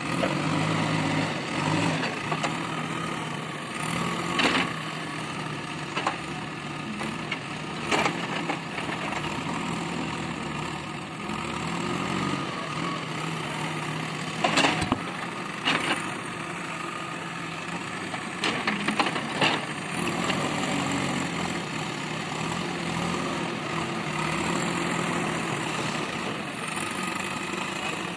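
JCB backhoe loader's diesel engine running steadily while it handles heavy tree logs, with several sharp wooden knocks as the logs strike the bucket and each other.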